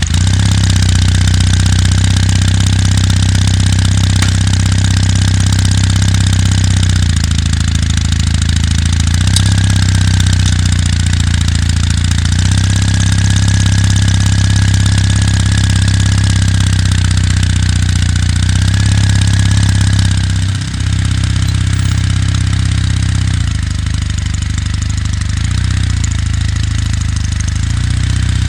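Kawasaki W800's air-cooled parallel-twin engine running at low revs just after starting, a steady loud exhaust beat whose pitch shifts a few times, with a brief dip about 20 seconds in.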